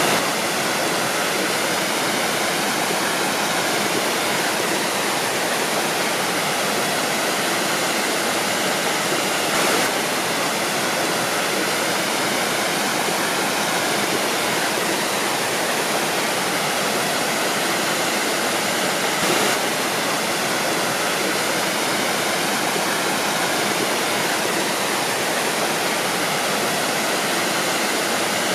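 Waterfall: a steady, loud rush of falling water, with brief swells now and then.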